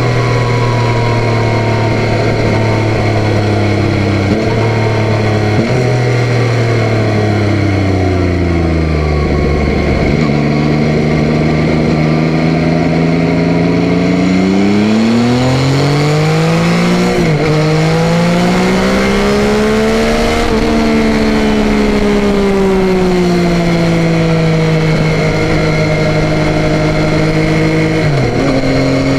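Yamaha Tracer 9's three-cylinder engine heard on board while riding: the engine note falls for about ten seconds as the bike slows, then climbs under acceleration with two quick upshifts about halfway through, falls again as it slows, and steps up with a downshift near the end.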